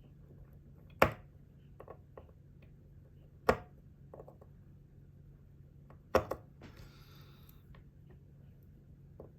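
Sharp clicks and taps of small metal watchmaker's tools working on a watch movement during disassembly. Three louder clicks come about two and a half seconds apart, with lighter ticks between them and a brief rustle about seven seconds in.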